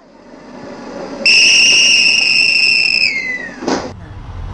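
A train whistle sounding one long, steady, high note for about two seconds, its pitch sagging as it dies away, followed by a short rush of noise. Before it, a faint noise swells up.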